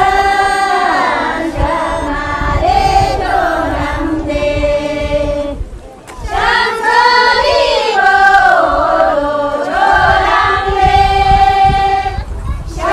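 Group singing, a chant-like song in long held notes, with a brief drop in the singing about six seconds in.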